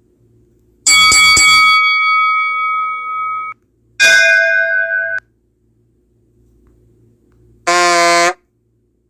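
Three separate comedy sound effects. The first is a few quick struck notes that ring on like a bell chime for about two and a half seconds. The second is a bell-like ding that cuts off suddenly after about a second, and the third, near the end, is a short toot whose pitch wavers.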